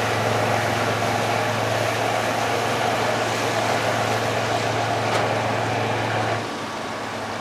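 Pusher tug's diesel engine running under load with a steady low drone, driving the propeller as the tug manoeuvres its barge. About six and a half seconds in, the sound drops and quietens, leaving a softer low hum.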